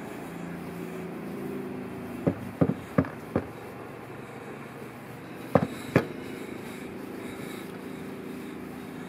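Sharp knocks from a pad head on a long extension pole bumping against a rendered wall and eaves: four in quick succession about two seconds in, then two more a couple of seconds later, over a steady low hum.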